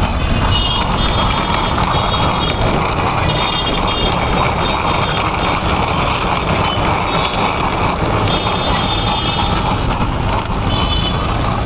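Electric countertop blender running steadily, its motor whining as it churns a thick fruit drink.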